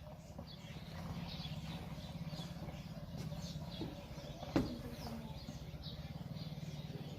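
Small birds chirping faintly over a steady low hum, with a single sharp click about four and a half seconds in.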